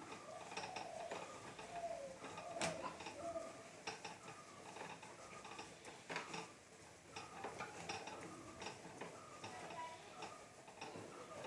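Faint scratching with small irregular clicks as a hand rubs sticky rice dough across a woven bamboo sieve, pressing it through the mesh over a pot of boiling water to steam bhat pitha.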